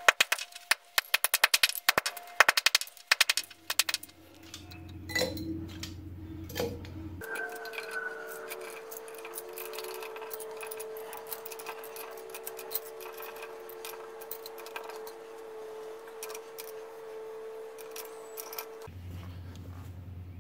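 A rapid series of hammer blows flattening scrap copper pipe on concrete for the first few seconds. Then light metallic clinks as the flattened copper pieces are dropped into a crucible, over a steady hum.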